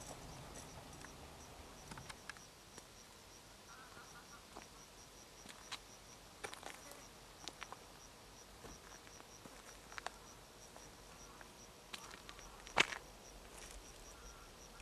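Faint insect chirping in the field: a high-pitched pulse repeating steadily about three times a second, with scattered faint clicks and one sharper click about thirteen seconds in.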